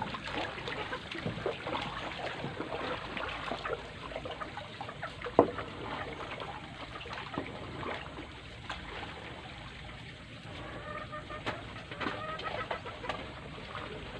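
Chickens clucking, with a single sharp knock about five seconds in.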